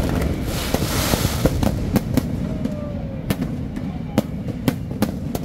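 Aerial fireworks going off overhead in a dense barrage: sharp, irregular bangs over a continuous low rumble, with a rushing hiss from about half a second to a second and a half in.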